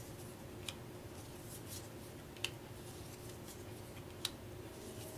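Old paper game cards being handled and laid down on a wooden table: faint rustling with three light taps of card on card or table, spaced a little under two seconds apart.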